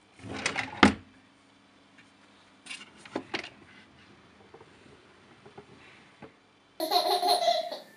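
A wooden drawer scraping with a sharp knock in the first second, and a few lighter knocks about three seconds in. Near the end a baby laughs loudly for about a second.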